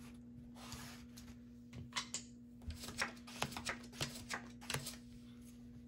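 Playing cards being gathered up and dealt onto a felt blackjack table: a run of quick soft snaps, slides and taps, mostly between two and five seconds in, over a faint steady hum.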